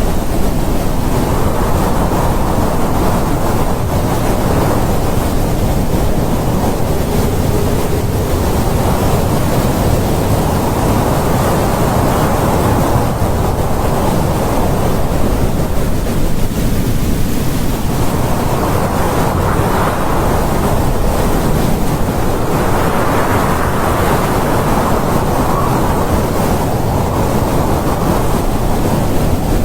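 Strong wind blowing in gusts that swell and ease every few seconds over a constant low rumble.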